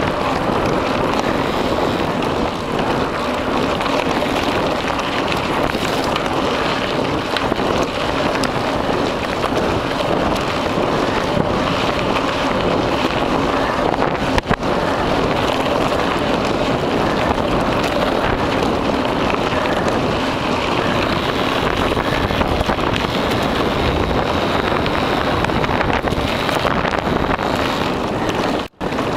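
Wind buffeting the microphone over the rumble of mountain-bike tyres on a dirt trail, with constant small rattles and bumps as the bike rides over the rough ground. The sound drops out for a moment near the end.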